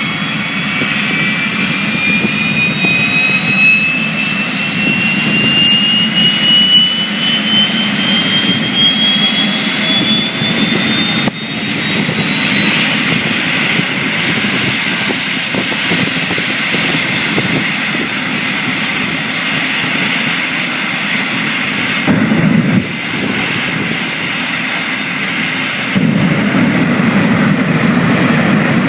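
The Jet Mini's jet engine running: a loud steady rush with a high whine that climbs slowly in pitch over the first dozen seconds as it spools up, then holds steady.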